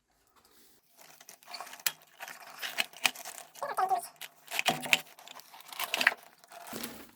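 Metal parts of a scooter's belt-drive transmission clicking, clattering and scraping as they are handled and moved by hand, in an irregular run of sharp knocks with a few short squeaks.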